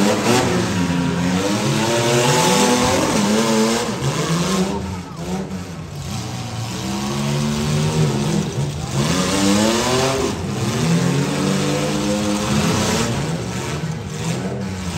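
Engines of several compact demolition-derby cars revving up and down, overlapping one another as the cars push and ram in the arena.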